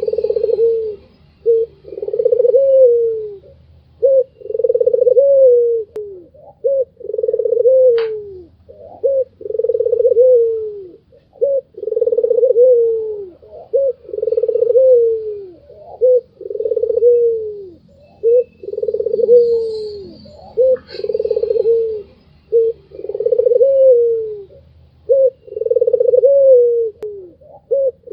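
White Barbary dove (puter) cooing over and over, its 'laughing' call: a short note, then a longer coo that bends down at its end, repeated about every two seconds. A sharp click is heard twice, and faint high chirps come near the start and again about two-thirds of the way in.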